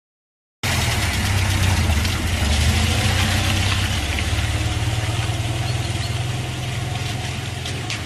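Steady low engine rumble with hiss, like a vehicle idling, starting abruptly about half a second in; a few light clicks near the end.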